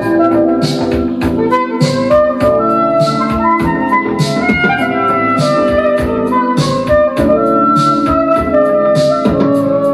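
Music playing from a vinyl record on a Pioneer PL-630 turntable: a tune of held melodic notes over a steady beat.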